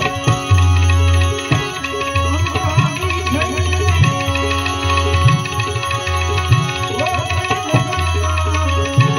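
Live Indian devotional folk music: tabla with deep booming bass strokes, a harmonium holding steady notes, small hand cymbals (manjira) clinking, and a keyed Indian banjo (bulbul tarang), with a man singing at times.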